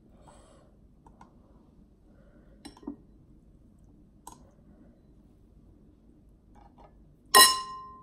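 Metal eating utensils tapping lightly against a clear glass bowl a few times. About seven seconds in comes one loud, sharp clink of metal on the glass bowl that rings and fades within about half a second.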